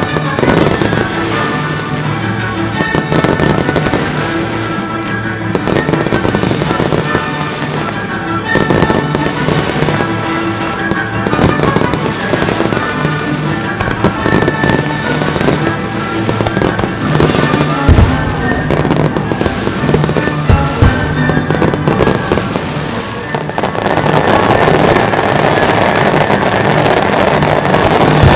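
Aerial fireworks shells bursting with sharp bangs over a pyromusical soundtrack of music. About 23 seconds in, the firing thickens into a dense, continuous barrage.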